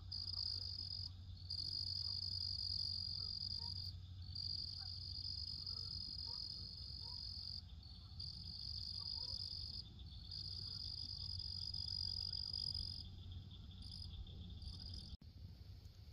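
Insects trilling: a high, shrill trill in long runs of one to three seconds with short gaps between them, over a steady, fainter insect chorus.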